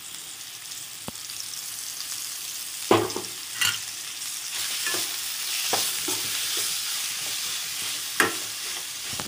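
Ground chicken and onions sizzling in oil in a steel kadai, with a steel ladle scraping and knocking against the pan as it is stirred. The loudest knocks come about three seconds in and again near the end.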